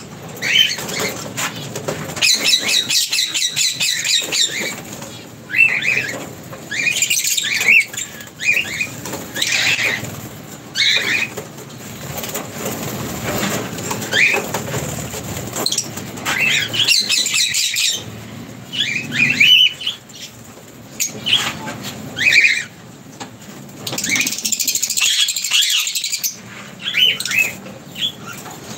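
Lovebirds in an aviary chattering, with many short, high, rapid chirps and squeaks in clusters throughout, mixed with the flutter of wings as birds hop and fly between perches.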